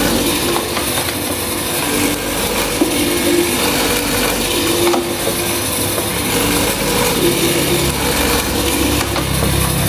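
Electric hollow-chisel mortising machine running with a steady motor hum. Its square chisel and auger are lowered by the hand lever into a wooden beam, grinding and boring out wood chips.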